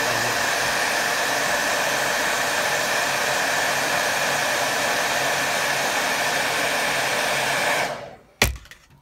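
Handheld hair dryer blowing steadily, a rush of air with a steady whine over it, drying wet watercolour paint. It is switched off near the end, followed by a single sharp knock.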